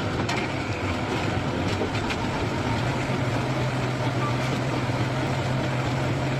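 A machine running steadily: a constant low engine or motor hum under dense mechanical noise, the hum growing a little stronger about halfway through.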